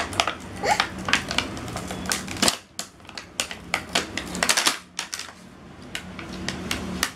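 Clear plastic blister packaging crackling and clicking irregularly as it is pulled off a plastic toy cash tray.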